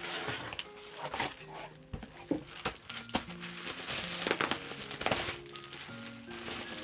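Crinkling and rustling of packaging being handled, in irregular bursts, over background music with sustained notes.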